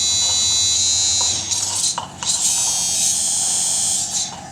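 Improvised electronic music: a dense, buzzing mass of high synthetic tones over a low hum. It breaks off briefly about two seconds in, resumes, and drops away near the end.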